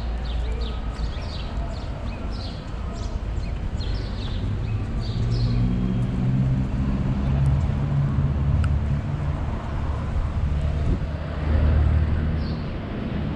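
Outdoor street ambience: small birds chirping over the first few seconds, then a motor vehicle's engine hum that builds and passes, loudest near the end.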